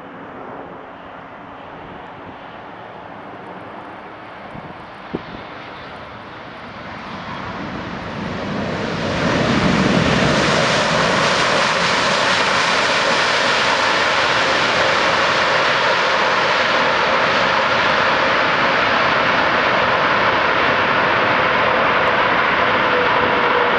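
Boeing 787-9 jet airliner on its landing rollout, its engines a moderate rush that swells about eight seconds in to a loud, steady roar as the airliner rolls past. Near the end a faint tone in the engine noise slowly falls.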